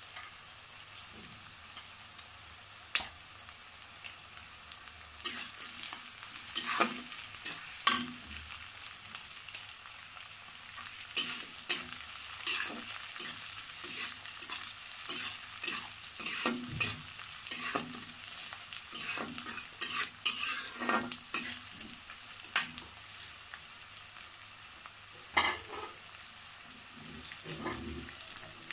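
Sliced onions and whole spices sizzling in hot oil in a black karahi while they fry to brown, with a metal spatula scraping and clacking against the pan as they are stirred. The stirring comes in quick strokes, busiest through the middle, over a steady sizzle.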